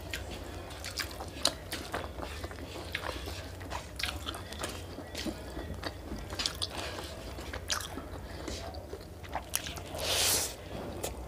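Eating with the hands: fingers kneading fried rice and chicken curry with wet squishing, chewing and lip-smacking clicks, over a steady low hum. A louder half-second rush of noise near the end as a handful of rice goes into a mouth.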